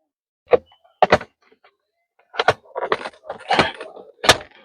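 Sharp clicks and knocks of plastic parts being pushed and fitted together as a steering-column clock spring (spiral cable) is fixed in place, with a stretch of rustling and scraping in between and the sharpest click near the end.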